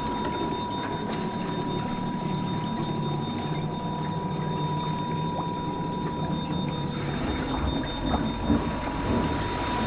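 The hydraulic swim platform of a Beneteau GT46 motor yacht lowering into the water, its hydraulic pump running with a steady hum and a constant high whine. Water sloshes and gurgles over the platform as it goes under near the end.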